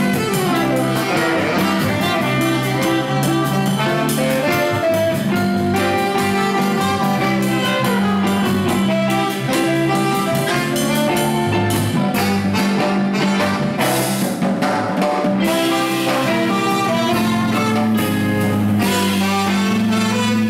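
Jazz band playing live, with saxophone and trumpet carrying the tune over a steady beat.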